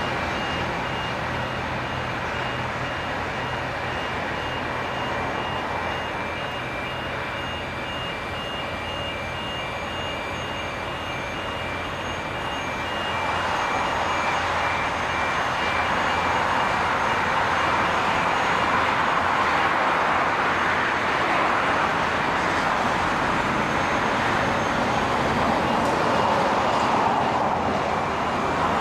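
Construction equipment's warning beeper sounding a steady run of beeps over machinery running on a work site. About 13 seconds in the beeping stops and a louder, rushing machinery noise takes over; the beeping comes back near the end.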